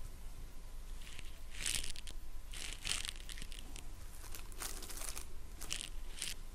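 About five short, soft rustles spread across a few seconds, over a steady low hum.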